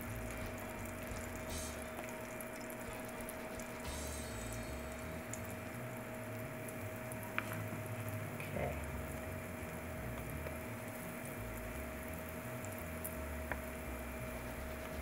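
Buttermilk pancake batter frying in hot oil in a cast-iron skillet: a steady sizzle, with a faint steady hum under it and a couple of light clicks.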